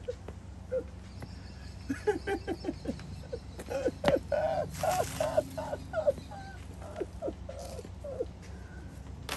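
Short animal calls, repeated in quick series, over a steady low hum. One sharp click about four seconds in.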